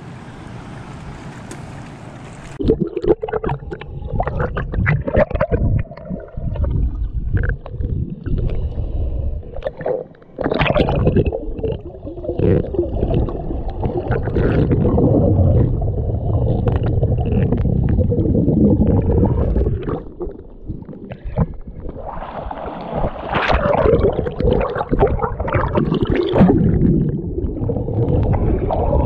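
Surface wind and wave hiss for a couple of seconds, then, as the microphone goes under, muffled underwater sound: a loud low rumble of moving water with gurgling, bubbling and irregular knocks and crackles.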